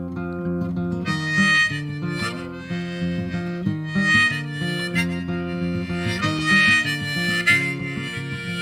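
Folk soundtrack music without singing: acoustic guitar, with a harmonica coming in about a second in and playing in phrases over it.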